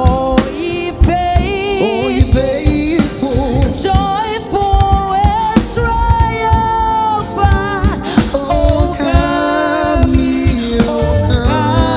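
Woman singing a gospel Christmas song into a microphone, with vibrato on her held notes, over a live band of keyboard, bass and drums.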